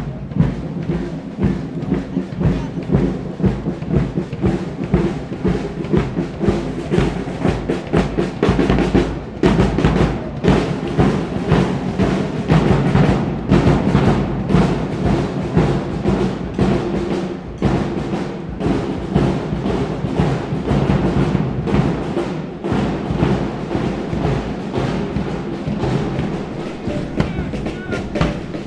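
Military band playing a march, held tones over drums keeping a steady beat.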